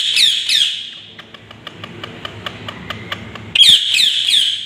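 Pet parrot giving quick runs of short, high, falling screeches: a run of about four at the start and another about four near the end, with faint sharp clicks between them.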